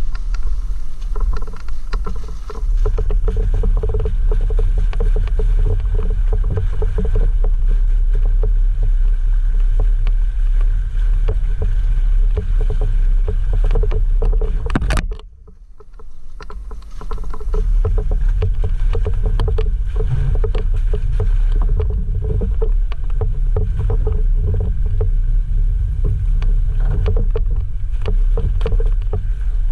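Jeep Wrangler JL Rubicon driving a rough dirt trail: a steady low engine and drivetrain rumble, with its 37-inch Nitto Trail Grappler tyres crunching and knocking over rocks and gravel. About halfway it cuts off after a sharp click and comes back a second or two later.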